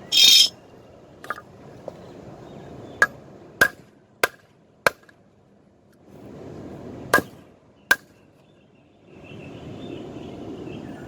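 Hand hammer striking a hot mild-steel rebar knife blank on an anvil: about eight sharp, irregularly spaced blows, each with a short metallic ring, struck at the blade's joint to bend the knife back to centre. A loud half-second burst comes at the very start, and a steady rushing noise runs behind some of the blows.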